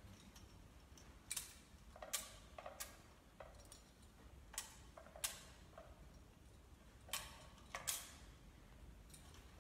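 A thurible swung to cense the Gospel book: faint, sharp metallic clinks of its chains against the censer bowl, about seven in all, mostly in pairs, each with a short ring.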